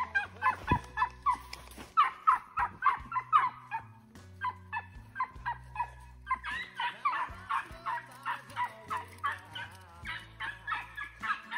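A pack of rabbit dogs baying on a rabbit's trail: many short, high yelps several a second, overlapping. The yelps thin out about four seconds in and pick up again after about six.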